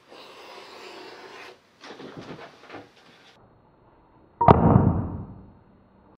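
Edge beveler being stropped on the rouge-coated edge of a veg-tan leather strip: a steady scraping rub, then a few shorter strokes. About four and a half seconds in comes a single sharp knock, the loudest sound, as the tool is set down on the bench.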